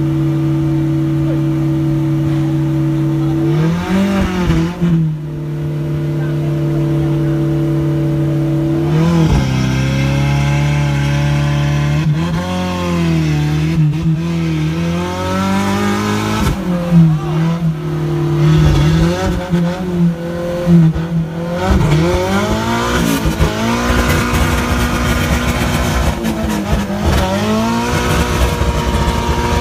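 Off-road 4x4's engine running at steady raised revs, then revving up and down again and again from about four seconds in, working under load as the truck climbs the steep wall of a dirt trench.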